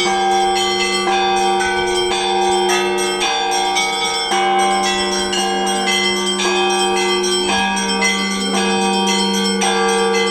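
Russian Orthodox church bells ringing the Paschal (Easter) peal: deep bell tones ring on steadily beneath quick, overlapping strikes of smaller, higher bells, several a second.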